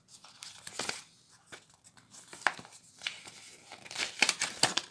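A folded playmat from the theme deck being handled and unfolded: crinkling and rustling with scattered clicks, busiest near the end.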